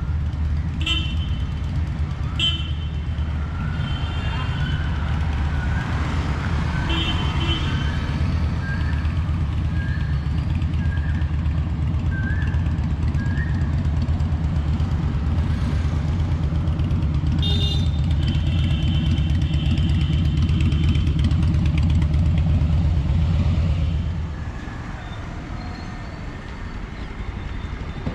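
Street traffic: a steady low vehicle rumble that fades a few seconds before the end. Short horn toots sound near the start and again later, and a run of short beeps comes about once a second in the middle.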